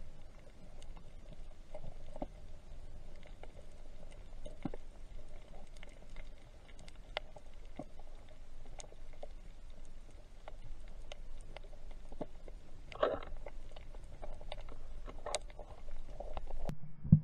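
Underwater ambience heard through a camera housing: a faint steady hiss with scattered sharp clicks and crackles throughout. Two short, louder rustling bursts come about two-thirds of the way in and again shortly after.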